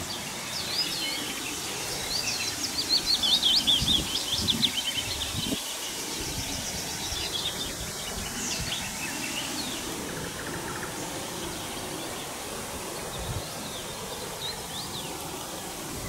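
Songbirds singing, with quick chirping trills crowding together in the first few seconds and scattered calls after, over steady outdoor background noise.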